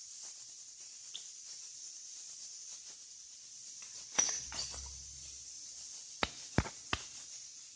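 Eggs being cracked against a stainless steel bowl: a sharp knock about four seconds in, then three quick taps of an egg shell on the metal near the end, over a faint steady hiss.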